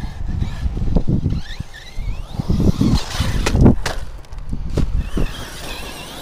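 Arrma Kraton RC truck's brushless electric motor whining and rising in pitch as it accelerates, over an irregular low rumble. Near the middle come a few sharp knocks of the truck landing and tumbling on dirt and gravel.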